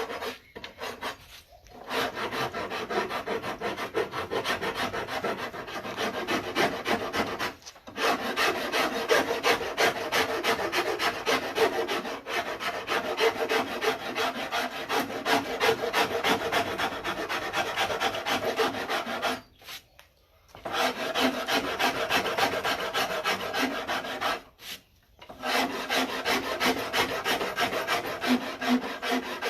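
Wood rasp carving the neck of a neck-through bass in fast, continuous scraping strokes, shaping the neck profile. There are short breaks about eight seconds in, a longer one around twenty seconds, and another near twenty-five.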